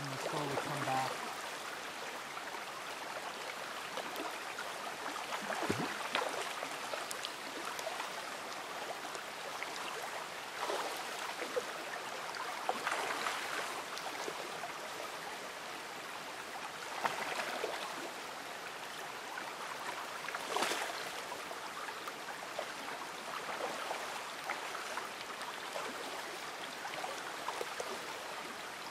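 Shallow creek water running and rippling over a gravel bed, with brief louder splashy surges every few seconds.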